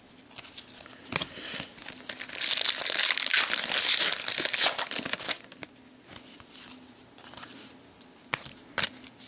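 A 2010 Contenders football card pack's wrapper being torn open and crinkled for about five seconds, followed by the cards being handled with a few light clicks and two sharper snaps near the end.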